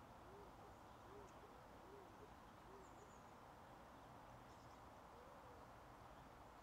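Near silence: faint open-air hiss with a distant bird's short, soft calls, each rising and falling in pitch, about one a second for the first few seconds and once more near the end, plus a few very faint high chirps.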